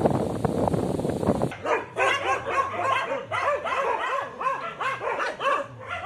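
Wind rushing on the microphone, then, about a second and a half in, a group of dogs starts barking: quick, overlapping barks, about three a second.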